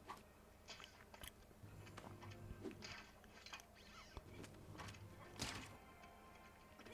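Faint soundtrack audio: quiet music under a scatter of short clicks and knocks, with one louder thud about five and a half seconds in.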